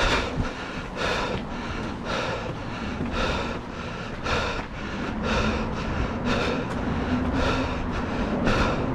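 A runner's footfalls on a dirt trail and his heavy breathing while running, over a low wind rumble on the microphone.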